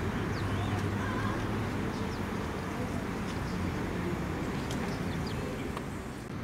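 Steady low hum and background noise, with a few faint short chirps from house sparrows.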